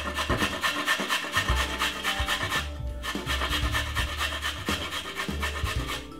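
Carrot being grated on a metal box grater: quick, even rasping strokes, about five a second, with a brief pause about three seconds in.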